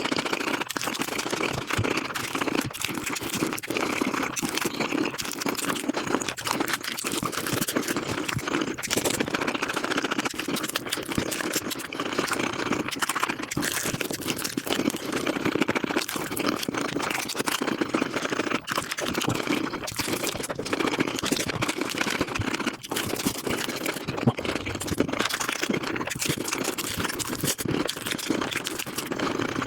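Close-miked eating sounds, such as chewing, smacking and crunching, sped up five times into a dense, rapid chatter of clicks and mouth noises.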